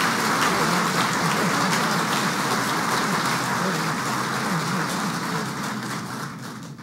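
Audience applauding: dense, even clapping that dies down near the end.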